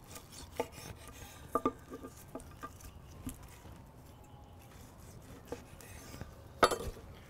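Knife slicing through the seared crust of a ribeye steak on a wooden cutting board: faint rasping strokes with a few sharp clicks, the loudest near the end.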